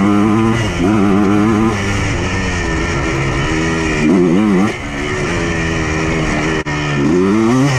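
Yamaha Blaster's 195 cc two-stroke single-cylinder engine revving under load as the quad is ridden, its pitch rising and falling with the throttle, with sharp rev climbs about four seconds in and near the end. The freshly prepared engine is being run in, pulled a little harder than before.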